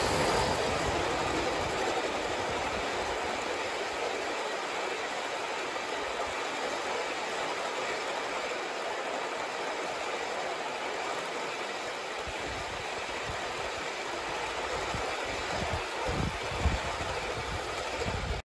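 A Gauge 1 model train rolls past, with its wheels running on the track in a steady rolling rattle. The noise is loudest as the locomotive goes by at the start, then eases a little as the passenger cars follow. A short knock comes near the end.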